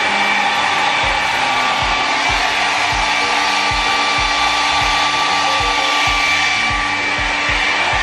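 Kris 600-watt travel hair dryer blowing steadily: a loud, even rush of air with a high, steady motor whine. Background music with a soft, steady beat plays underneath.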